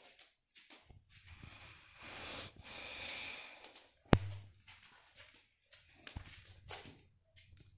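Footsteps scuffing on a bare, gritty concrete floor, with two long breathy rushes of air about two and three seconds in and a single sharp knock just after four seconds, the loudest sound.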